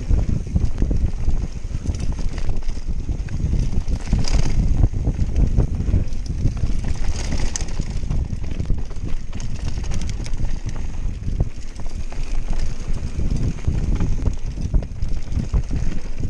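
Canyon Spectral AL 7.0 EX mountain bike descending a dirt trail at speed: heavy wind buffeting on the microphone over the tyres' rolling and a constant clatter of small knocks from the bike rattling over bumps. There are brief hissy bursts about four and seven seconds in.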